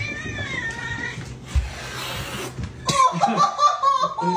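Domestic cat meowing, a drawn-out wavering call at the start, with more wavering vocal sound from about three seconds in.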